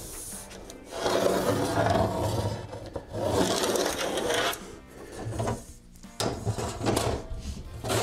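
Pencil drawing along a metal straightedge, and the straightedge sliding on the board: two long scratchy strokes in the first half, then shorter rubs and a few light knocks.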